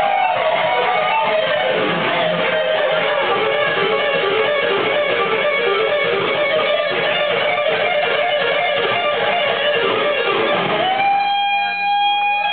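Electric guitar playing a fast lead line of quick notes, settling about eleven seconds in on one long held note that bends slightly upward.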